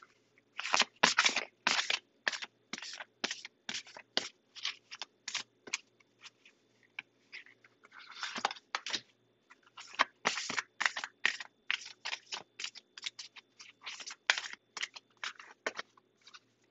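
Deck of tarot cards being shuffled by hand: a long run of sharp card snaps, two or three a second.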